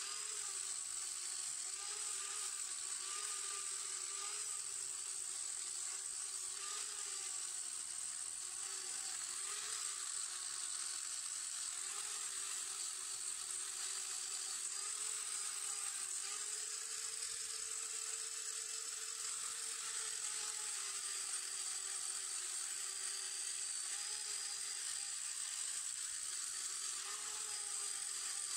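Small handheld electric grinder running steadily with an abrasive disc worked against a tubular metal luggage rack, taking off rust. A steady motor whine, its pitch wavering slightly as the disc bears on the metal, over a constant hiss of grinding.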